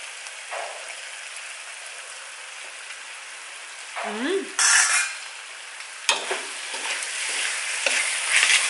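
Pork belly sizzles in a sticky caramelized soy-and-sugar sauce in a wok over the lowest gas flame. About four seconds in there is a short rising vocal sound and a loud breathy burst as the hot pork is tasted. From about six seconds a metal ladle clinks and scrapes against the wok as the pork is stirred.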